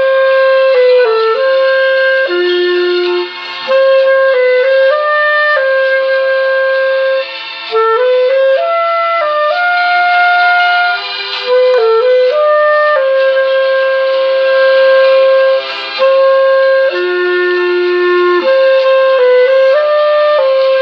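Clarinet playing a slow solo melody of held notes, with short breaks between phrases.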